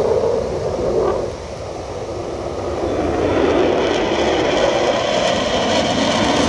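Two fighter jets flying past in formation, their jet engine noise a broad rushing sound that grows louder from about two seconds in and stays loud. Before that, wind and surf noise.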